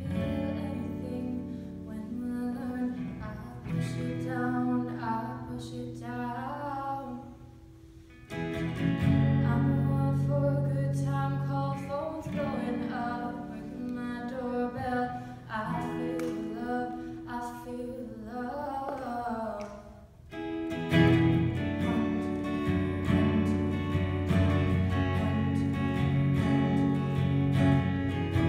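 A woman singing to her own acoustic guitar. The guitar drops back twice between phrases, then from about two-thirds of the way through the strumming turns louder and fuller under the voice.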